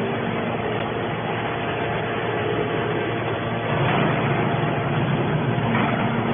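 Horizontal hydraulic metal baler running: a steady machinery drone from its hydraulic power unit, swelling slightly about four seconds in and again near the end.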